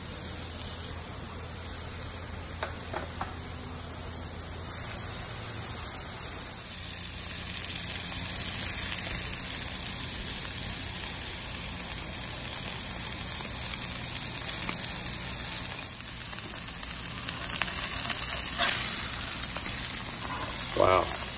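Wagyu ribeye steaks and vegetables sizzling on a hot Blackstone flat-top griddle, a steady frying hiss that swells about six seconds in as the steaks go down on the hot steel.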